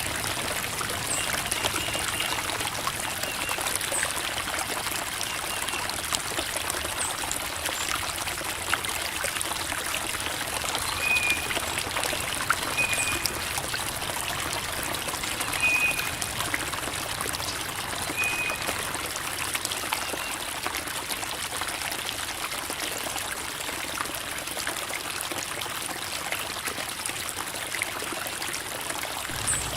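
Creek water babbling and trickling over rocks, a steady splashing flow full of small drips and gurgles. A few short, high chirps sound briefly about halfway through.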